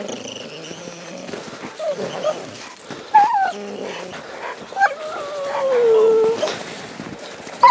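Leashed hunting hounds whining and yelping in eagerness while straining to get ahead on a cougar hunt, with a few sharp yelps and one long falling howl past the middle.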